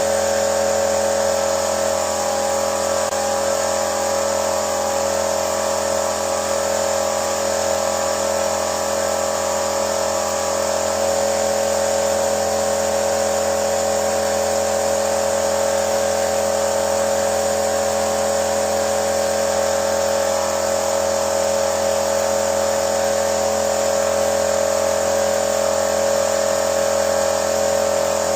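A car engine running at a steady speed, with a steady whine over it and no change in pitch or level.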